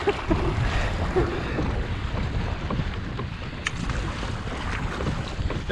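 Wind rumbling on the microphone over water splashing and lapping against a moving kayak's hull.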